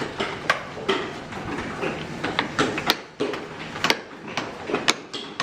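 Hand tools striking wood: irregular sharp knocks, a few a second and of uneven loudness, typical of several carvers tapping chisels with mallets.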